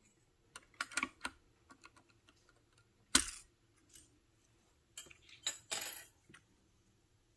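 Plastic keycaps clicking and clattering as they are pried off and pressed onto a Freewrite keyboard. There are scattered sharp clicks, the loudest just after three seconds and a quick cluster near the end.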